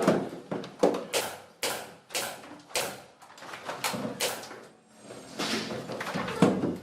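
A series of irregular knocks and thumps, about one or two a second.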